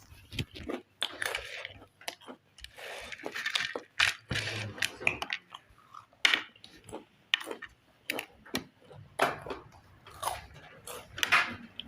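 A person eating crisp packaged chips close to the microphone: irregular sharp crunches with wetter chewing between them.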